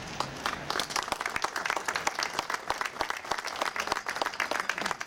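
Applause: many hands clapping at once in a dense, uneven patter.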